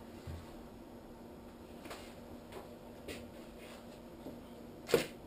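A DSLR camera's shutter firing once, a sharp mechanical click near the end, preceded by a few faint small clicks of the camera being handled.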